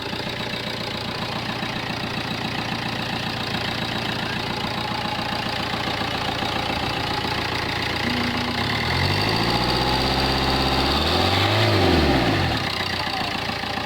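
Chevrolet Spin's common-rail turbodiesel engine idling, revved once about 9 seconds in, rising to a peak and dropping back to idle about three seconds later. The engine is running on rocker arms repaired by brass welding instead of factory parts.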